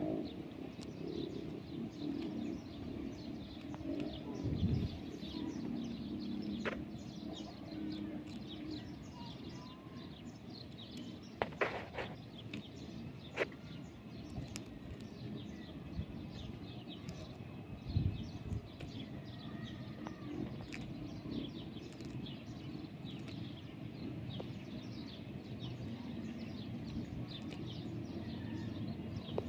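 Small birds chirping, many short high calls repeating all through, with a few sharp clicks around the middle.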